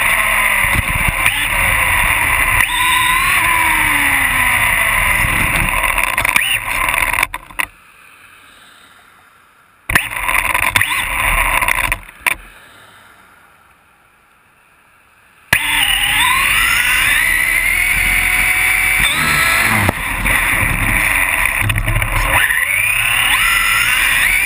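Novak Ballistic 8.5 brushless motor and drivetrain of a Losi XXX 2WD RC buggy, heard from on board. Its whine rises and falls in pitch as the buggy speeds up and slows, over the rolling noise of the tyres on asphalt. Twice it drops to a low hush for a few seconds while the buggy stops, then comes back suddenly.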